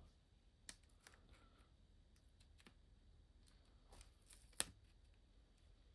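Near silence with a few faint clicks and taps from small crafting items being handled, the sharpest about four and a half seconds in.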